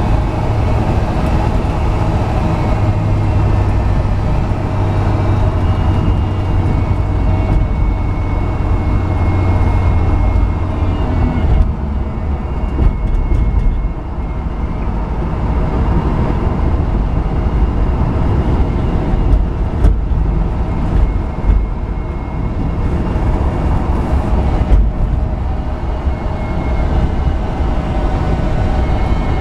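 1970 Chevrolet truck's engine running steadily under way, heard from inside the cab with road and wind noise. The engine note eases off about twelve seconds in, then picks up again.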